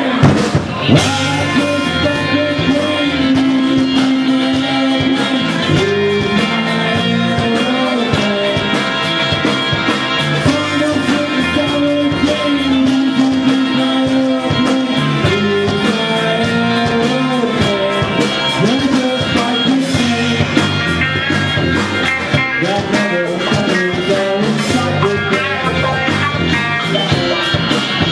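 Rock music with guitar, a steady beat and a singing voice carrying the melody.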